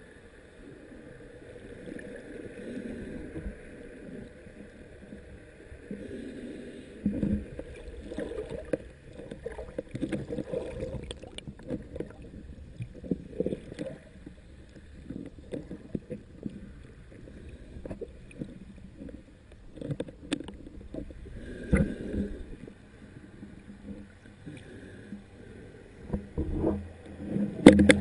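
Muffled underwater sound from a camera held by a snorkeler at the surface: irregular sloshing and knocks of water moving against the camera, with a few sharper thumps and a faint steady hum behind them.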